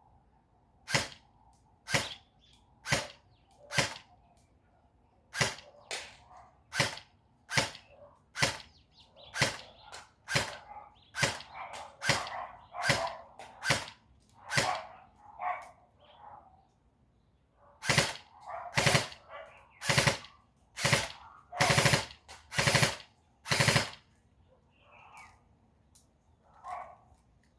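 Airsoft gun firing single shots, roughly one a second, each a sharp pop, with a couple of short pauses between strings of shots.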